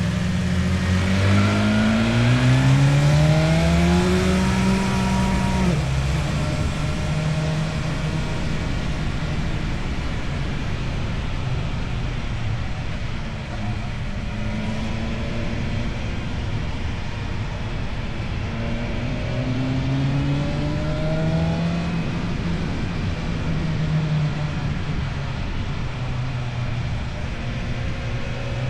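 Motorcycle with an Akrapovic exhaust under way. The engine pulls up through the revs in the first few seconds, drops sharply at a gear change, runs steadily, then climbs again about twenty seconds in, over a steady rush of wind.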